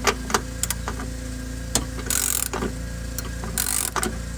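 Ratchet wrench with an 11 mm socket turning a compressed nut that grips a broken bolt, worked slowly. Scattered clicks and creaks come from the tool and bolt, and the ratchet rasps twice on its return strokes, over a steady low hum.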